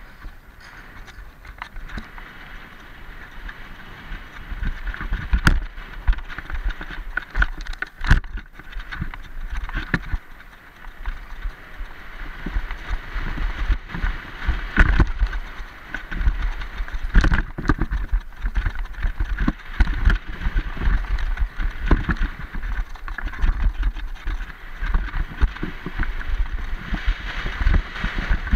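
Mountain bike ridden fast down a dirt downhill trail, heard from the rider's action camera: a continuous rumble of tyres on dirt and gravel, full of rattles and sharp knocks from bumps, louder from about four seconds in.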